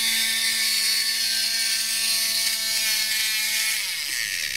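Small DC drive motor of a Duracell drumming bunny running steadily at 3 volts with a high whir, its main gear slipped out of engagement, the fault that had stopped the bunny drumming. Near the end the pitch falls as the motor spins down and stops.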